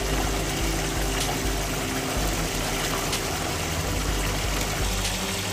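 Water pouring steadily out of two outlet pipes of a pump-fed pond biofilter, a continuous rushing and splashing.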